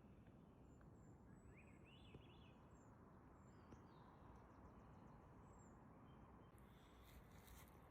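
Faint birdsong: a few short chirps and rising whistles over a quiet outdoor hush, with light rustling near the end.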